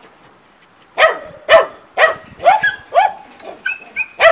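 A dog barking in a steady series, about two barks a second, starting after a quiet first second; the last few barks are more drawn out.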